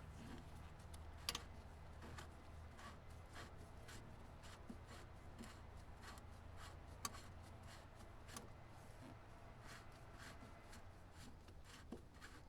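Faint rubbing and light clicks of a fuel filter housing being unscrewed by hand along its long threads, over a low steady hum.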